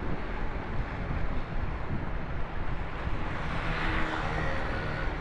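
Steady road-traffic and wind noise heard from a moving bike, with wind buffeting the microphone. Near the end, the engine tone of a nearby vehicle comes up over the rush.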